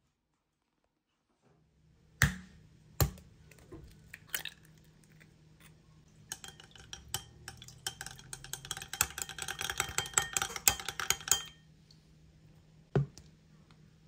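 Kitchenware clinking: two sharp knocks, then about five seconds of rapid ringing clinks of utensil against dish, stopping abruptly, and one more knock near the end.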